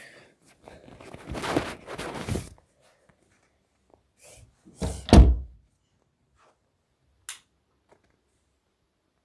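A scraping, rustling stretch, then a single heavy thud, the loudest sound, about five seconds in, and a short sharp click a couple of seconds later.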